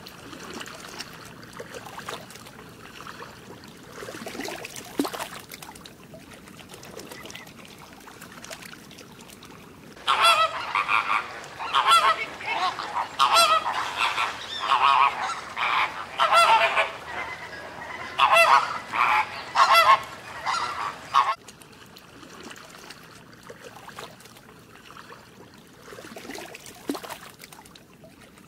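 Animal calls: a dense run of loud, short pitched calls, a dozen or more in quick succession, starting about a third of the way in and breaking off about ten seconds later, with fainter scattered calls before and after.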